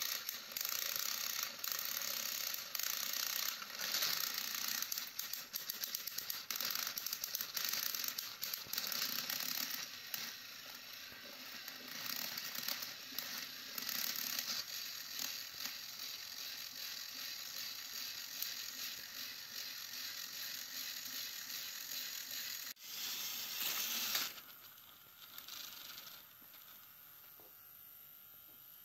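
Battery-powered toy train motor and plastic gearbox running, a dense whirring rattle of fine clicks as the engines pull their train along plastic track. About 24 seconds in, after a short louder burst, it drops sharply to a faint leftover hum.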